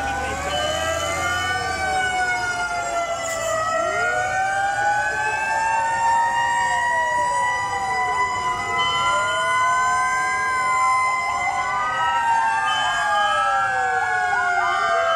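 Many fire truck sirens wailing together, their rising and falling tones overlapping, some in long slow sweeps and others in quick ones.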